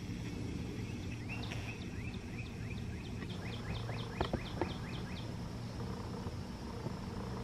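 Steady low hum of a rail maintenance-of-way machine's engine idling, with a bird singing a quick run of repeated chirps over it from about a second in to about five seconds in. A few light clicks come around four seconds in.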